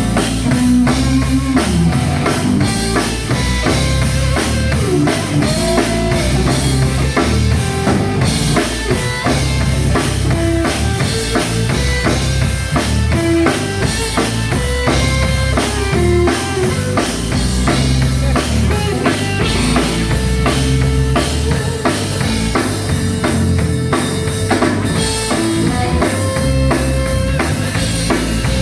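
Live gospel band playing an instrumental passage: drum kit with bass drum and rimshots keeping a steady beat under bass and guitar.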